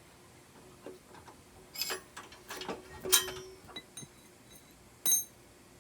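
Metal parts of a mini bike's wheel assembly clinking and knocking as they are taken apart and a spacer is refitted. The loudest knock comes about three seconds in and rings briefly, and one sharp ringing clink comes near the end.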